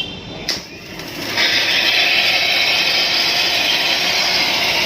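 A pyrotechnic spark effect fired on cue: a sharp click, then about a second later it catches and sprays sparks with a loud, steady hiss.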